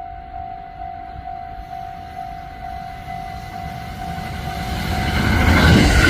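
Railway level-crossing warning bell ringing about twice a second as a train approaches; the train's running noise rises and becomes loud about five seconds in, drowning out the bell.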